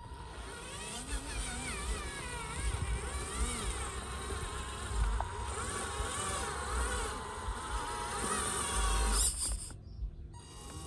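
Small electric motors and gearboxes of radio-controlled construction models whining, their pitch rising and falling as the controls are worked, cutting off suddenly near the end.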